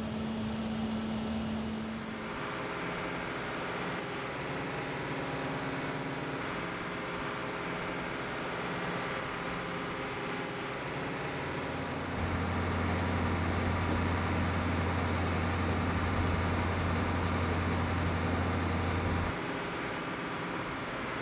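Steady drone of jet aircraft engines, with many held tones over a noisy rush. A deep hum swells louder about twelve seconds in and drops away suddenly about seven seconds later.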